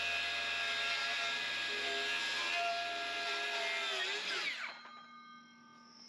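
Handheld circular saw running as it trims the board ends of a freshly milled green-lumber floor along a chalk line. Its motor winds down with falling pitch about four and a half seconds in.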